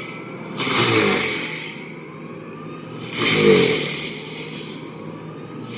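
A motor engine revving in two surges, about a second in and again past three seconds, running steadily between them.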